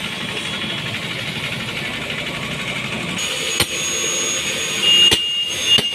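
Steady engine-like hum with a thin high whine joining about halfway through. In the second half come three sharp knocks of a tool striking the motorcycle's front wheel as the tyre is beaten loose from the rim.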